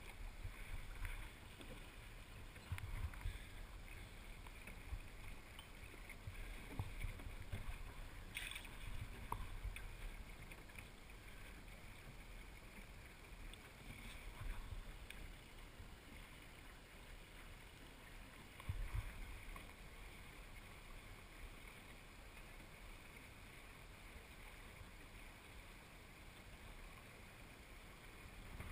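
Faint wind and water noise aboard a small sailing dinghy under way: a low wind rumble on the microphone that swells in a few gusts, water moving along the hull, and a single sharp click about eight seconds in.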